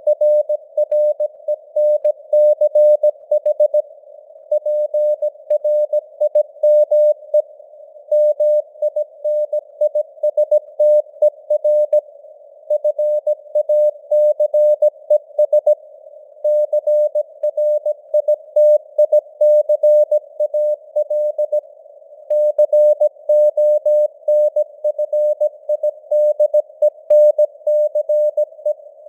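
Morse code (CW) sent at 17 words per minute: a single steady beep tone keyed on and off in dots and dashes, with short pauses between words. A narrow band of simulated radio noise hisses around the tone, imitating a received CW signal.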